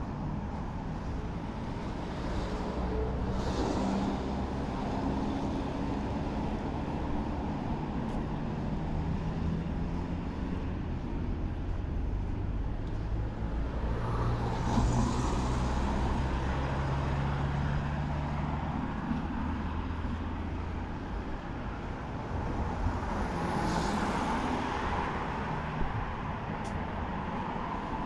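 Outdoor traffic ambience: vehicle engines running, with low engine tones that shift in pitch and louder rushes of noise about three, fifteen and twenty-four seconds in.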